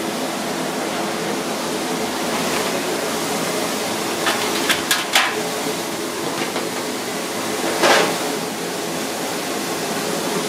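Steady rushing background noise of a working kitchen, with a few sharp clicks about four to five seconds in and a brief louder rush a little before the end.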